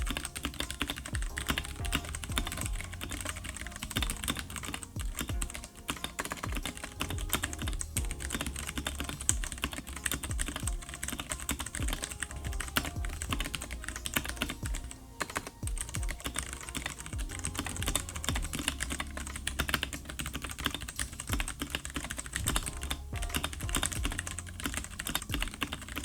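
Typing on a Ducky One 3 Mini mechanical keyboard with tactile, non-clicky Cherry MX RGB Clear switches: a dense, continuous run of keystrokes, with a couple of brief pauses.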